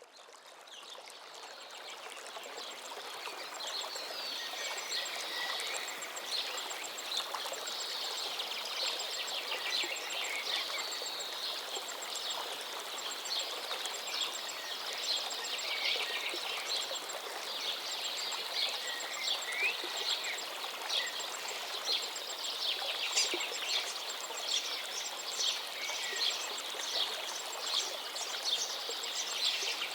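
Gently flowing river water running steadily while songbirds chirp and sing throughout, with many short, high calls and trills. The ambience fades in over the first few seconds.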